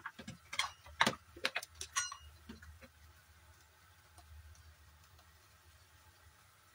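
Kitchen utensils clicking and tapping: about eight light, irregular clicks over the first three seconds, then only a faint low hum.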